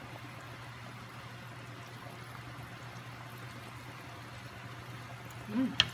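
Sinigang broth simmering in an enamelled cast-iron pot: a steady soft bubbling hiss over a low steady hum. Near the end come a short murmur and a sharp click.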